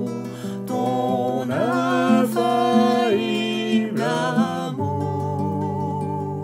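French worship song sung in a gentle, slow style with acoustic guitar accompaniment; the voice sways on notes with vibrato and holds one long note near the end.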